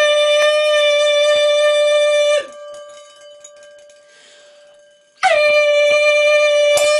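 A man's singing voice holding one loud, steady high note into a wine glass to drive it at its resonant pitch and shatter it. The note breaks off after about two seconds, and after a short pause the same note starts again, a touch high at first before settling, and is held.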